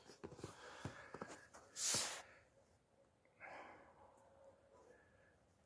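A person sniffing sharply about two seconds in, then a softer breath out about a second and a half later, with a few faint clicks before.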